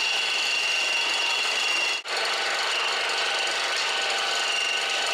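Electric leaf-shredding machine running, with a steady high whine over a rasping grind as fresh leaves are fed through and chopped, a step in making plant dye. The sound drops out for an instant about two seconds in, then carries on.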